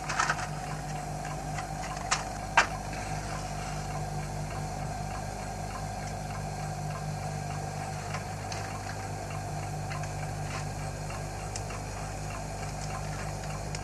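Faint, fairly regular ticking over a steady low hum, with two sharper clicks a couple of seconds in.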